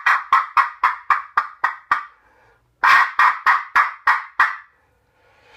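Mexican clay wind whistle blown in rapid short puffs, a breathy, hissing whistle tone cut into about four bursts a second: a run of about eight, a brief pause, then about seven more.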